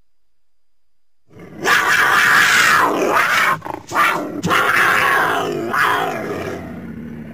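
Mountain lion (cougar) giving two long, harsh, raspy calls, the first starting about a second and a half in and the second about four seconds in, trailing off near the end.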